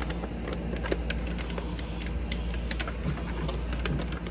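Irregular light clicks and rustles of a phone being handled close to its microphone, over a steady low hum.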